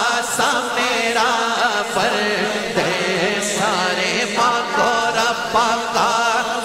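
Devotional naat music: a wordless, ornamented melody with a wavering line, without a break.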